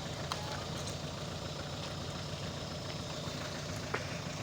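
Off-road 4x4's engine idling steadily, with a couple of short faint clicks.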